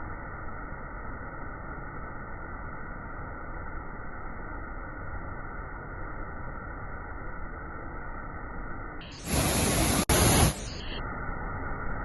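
Steady rushing noise of a waterfall. About nine seconds in, a much louder, brighter hiss breaks in for about two seconds, with a brief dropout in the middle, before the steady rush returns.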